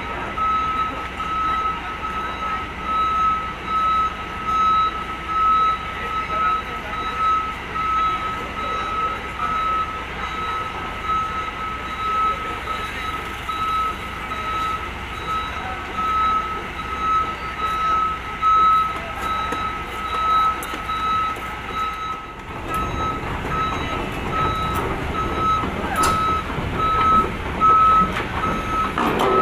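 Reversing alarm on heavy machinery beeping repeatedly in a steady, single-pitched tone over running engine noise. The low engine rumble grows louder about two-thirds of the way through.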